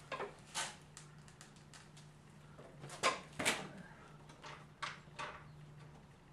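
Scattered clicks and knocks from car parts and tools being handled during reassembly of the front end, about six in all, the two loudest close together about three seconds in.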